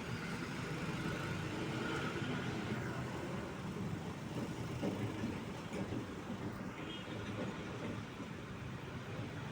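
Road traffic with heavy truck engines running, a steady rumble.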